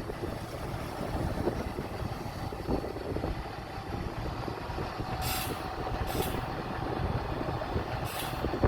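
Diesel engine of earthmoving machinery running steadily, with three short hisses in the second half.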